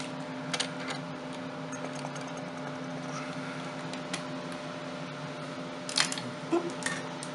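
Small clicks and taps of a CPU being fitted into a motherboard socket, with a sharper cluster of clicks about six seconds in, over a steady low hum.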